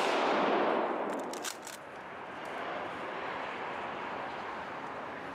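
The echo of a 20-gauge shotgun shot rolling through the woods, loud at first and fading over about two seconds, with a few faint clicks about a second and a half in.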